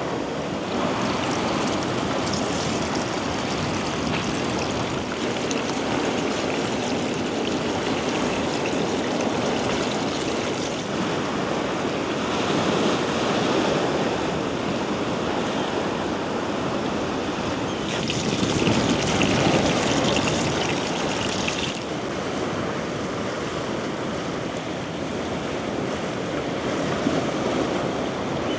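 Sea water washing on the shore: a steady rush of small waves, with louder swells about twelve seconds in and again around eighteen to twenty-two seconds.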